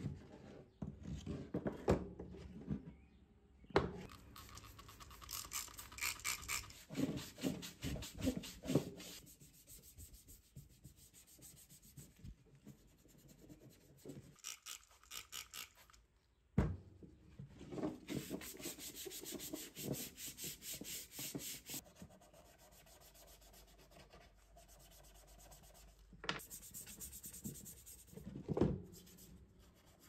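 Bursts of rapid scrubbing and rubbing on the soapy plastic body panels of a Smith Corona Silent typewriter, with quieter rubbing between the bursts and a few sharp knocks.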